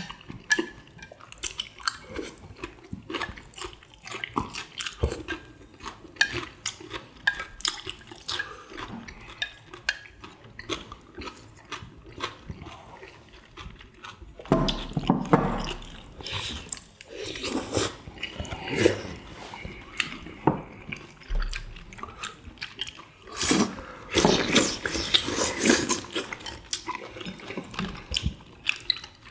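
People eating tteokbokki with chopsticks: wet chewing and slurping, with frequent sharp clicks of chopsticks and dishes against bowls. It gets louder for a few seconds about halfway through and again near the end.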